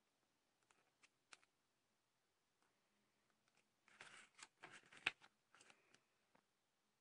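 A glossy paper guide's page being turned by hand: a few faint clicks, then a burst of paper rustling and crackling about four seconds in, with one sharp snap in the middle of it.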